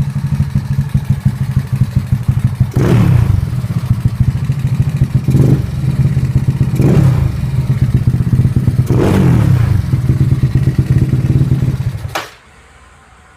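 An engine and its exhaust idling with a lumpy beat and revved four times with short throttle blips, then switched off about twelve seconds in.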